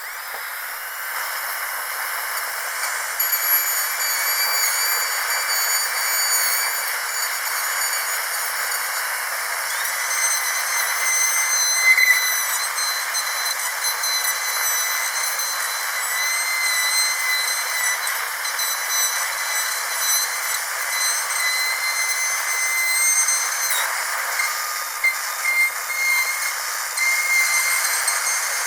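Dentist's drill running: a steady high-pitched whine over a constant hiss, its pitch wavering slightly.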